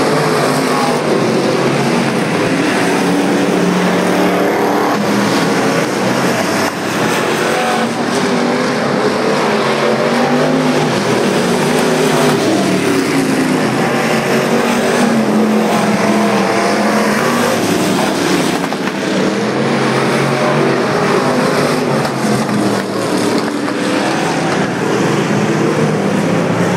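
A field of super street stock cars racing around a dirt oval, several engines running hard at once. Their pitches rise and fall as the cars pass and go round the track.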